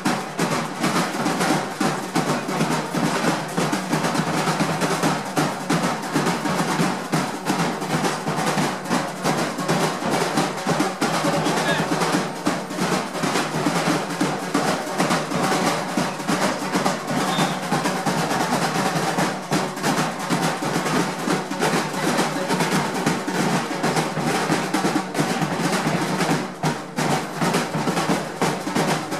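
A street drum band's marching snare drums played together in a fast, unbroken rhythm, thick with rolls.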